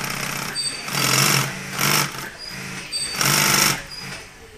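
Industrial sewing machine stitching a seam in heavy upholstery material, running in several short runs of rapid needle strokes with brief pauses between them.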